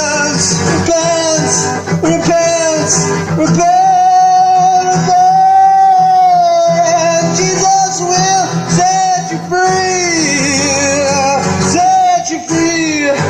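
Song with a voice singing long held notes over instrumental backing.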